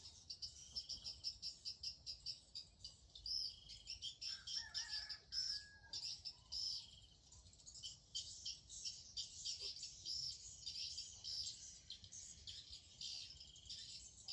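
Small birds chirping and twittering rapidly and continuously, high-pitched, with insects trilling among them. There are a few lower whistled notes between about four and six seconds in.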